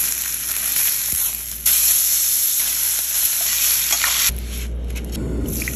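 Steak searing in a hot skillet, a steady loud sizzle that steps up louder about a second and a half in, then drops away about four seconds in, leaving a low hum.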